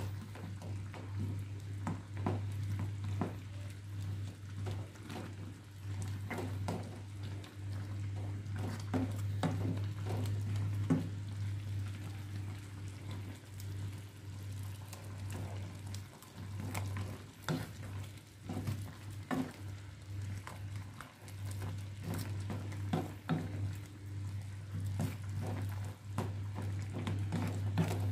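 Wooden spatula stirring crab, shrimp and vegetables in coconut milk in a metal pan, with scattered scrapes and taps against the pan. A steady low hum runs underneath.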